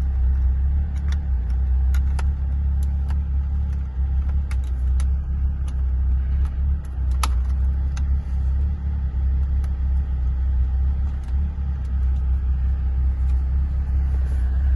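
Small clicks and taps of plastic door-trim pieces and a push button being handled and pressed into the door, over a steady low rumble.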